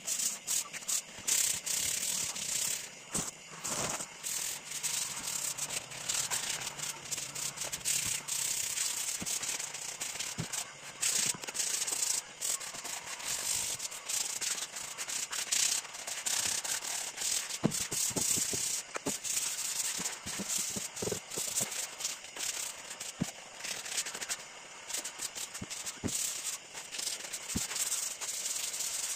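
Sandpaper rubbed by hand over a wooden stool in short, uneven back-and-forth strokes, each stroke a brief rasping hiss with small gaps between.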